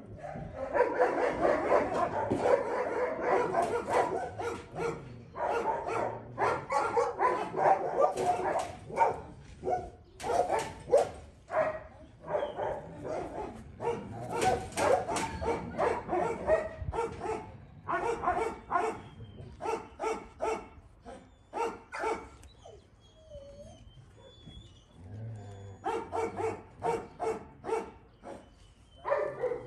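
Several dogs barking at once, dense and overlapping at first, then in runs of sharp repeated barks. The barking eases off about three-quarters of the way through, then picks up again near the end.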